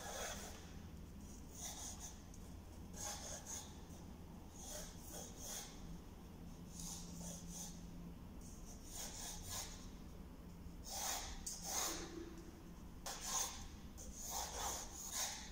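Pencil drawing on paper: light, scratchy strokes that come and go irregularly, over a low steady room hum.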